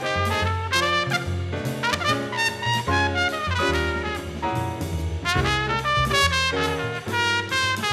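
Live jazz: a trumpet plays a fast, busy solo line over upright double bass notes stepping underneath.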